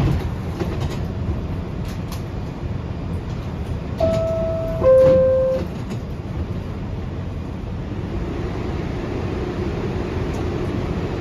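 A New York City R62A subway car's two-note falling door chime sounds about four seconds in, over the steady rumble of the car. The rumble grows a little louder near the end.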